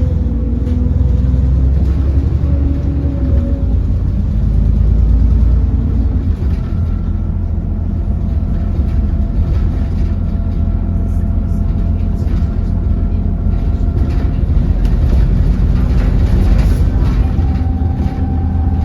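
Alexander Dennis Enviro400 double-decker bus heard from inside while it drives: a steady low rumble with a thin high whine whose pitch changes a few times. This is the vacuum-cleaner-like "Hoover" whine this bus is known for.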